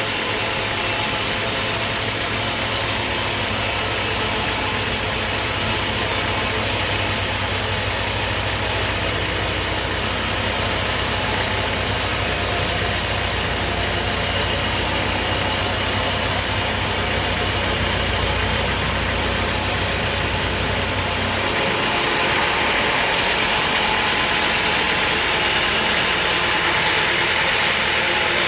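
Sawmill machinery running steadily with a constant low hum and high hiss. About three-quarters of the way through the low hum drops away and a brighter, hissier noise carries on.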